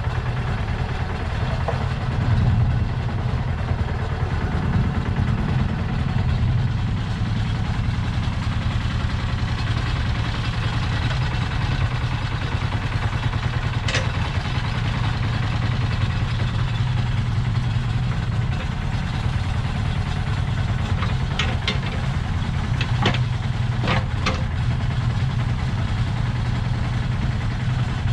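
The Lister SR1 single-cylinder diesel of a 1979 Smalley 5 mini digger runs steadily while its hydraulics work the boom and bucket. There is one sharp knock about halfway through, then several in quick succession about three-quarters of the way in.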